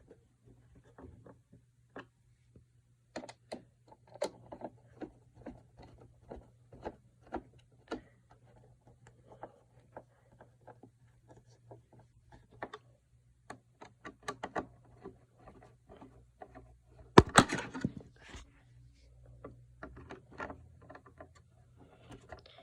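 Scattered clicks and taps of hands handling a Roomba robot vacuum and its parts, with one louder knock about three-quarters of the way through, over a faint steady hum.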